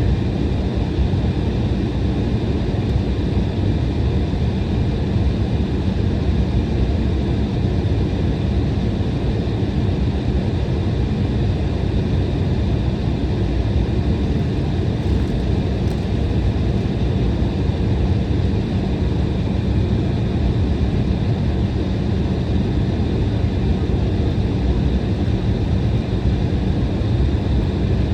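Inside the cabin of an Embraer E175 airliner on the ground: a steady rumble of its GE CF34 turbofan engines and cabin air, with a faint steady whine above it.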